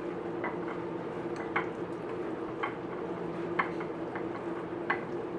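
Flour-dredged chicken breasts frying in melted butter and oil, a steady sizzle with irregular sharp spits and pops, about ten of them, over a low steady hum.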